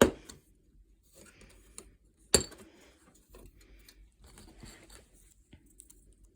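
Small plastic model-kit parts handled on a tabletop: two sharp clicks, one at the start and one about two and a half seconds in, with light taps, rustling and scraping between.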